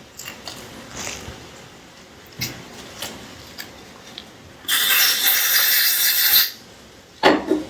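Light clicks and scraping as small metal carburettor parts are handled and worked, then a loud steady hiss lasting nearly two seconds about halfway through, and a sharp knock shortly before the end.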